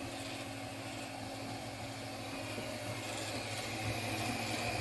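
Anet A8 Plus 3D printer running a print, its fans and stepper motors making a steady hum, with a higher whine coming in about halfway.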